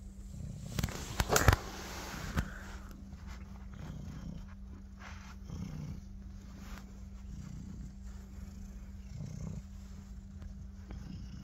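Domestic cat purring while being scratched on the head and cheeks, a low rumble that swells and fades about once a second with its breathing. A few sharp knocks sound about a second in.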